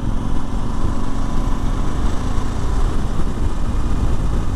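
Suzuki V-Strom 1000 motorcycle cruising at highway speed: a steady low rush of wind noise mixed with the engine's drone, without change.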